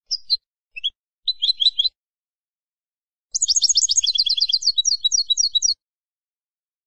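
Wild European goldfinch singing: a few short chirps and a brief twittering phrase, then, from about three seconds in, a longer run of fast, repeated twittering notes.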